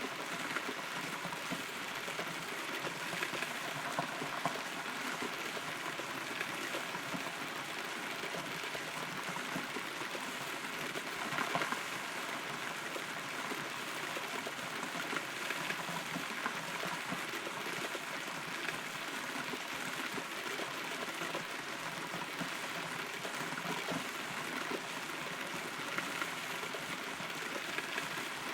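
Steady rain heard from inside a hollow rotten tree trunk: a constant patter of drops on wood and leaves, with scattered louder drips and a brief louder spell about eleven seconds in.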